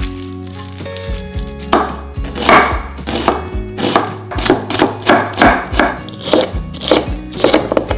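Kitchen knife chopping onion and red pepper on a wooden (bamboo) cutting board. A steady run of sharp cuts, about two to three a second, starts a couple of seconds in.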